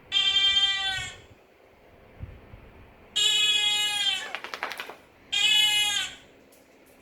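A dog gives three drawn-out, howl-like calls in response to dog barks. The first lasts about a second, the second is longer and breaks into a wavering stutter at its end, and the third is short, near the end. Each call dips in pitch as it ends.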